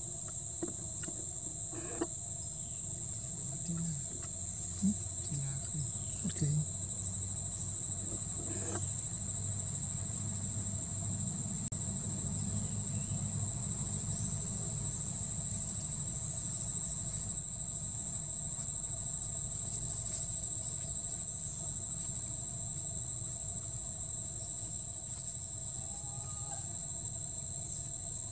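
Steady, high-pitched drone of insects in chorus, unbroken throughout, over a low background rumble.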